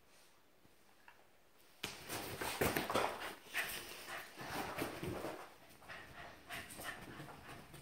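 Dogs at play: dog vocal sounds mixed with scuffling and thumps, starting suddenly about two seconds in and going on unevenly.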